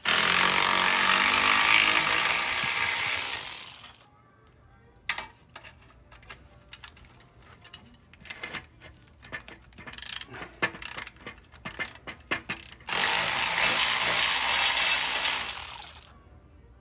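A power tool runs in two bursts of about three and a half seconds, at the start and again about thirteen seconds in, with scattered clicks and clatter of tools on metal between them. These are the bolts being run out of the ATV's exhaust mounts.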